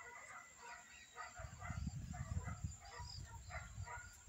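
Faint, scattered bird chirps and calls in the background. A low rumble comes in about a second and a half in and fades by about three seconds, the loudest thing heard.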